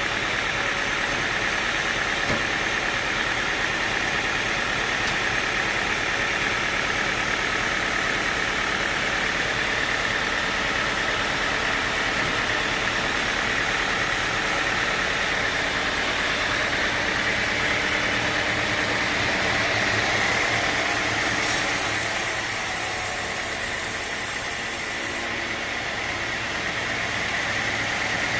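Sawmill machinery running steadily: a motor drone with the continuous noise of the saw, easing slightly for a few seconds near the end.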